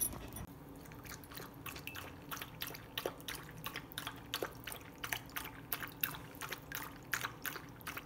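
A dog lapping water from a bowl: a quick, irregular run of faint wet laps.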